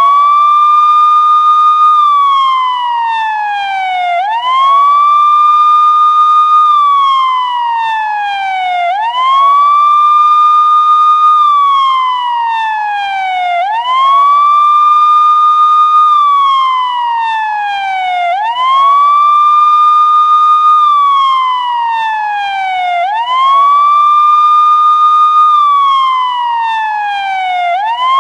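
Loud police car siren sounding a wail: each cycle sweeps quickly up in pitch, holds high for about two seconds, then slides slowly back down, repeating about every four and a half seconds.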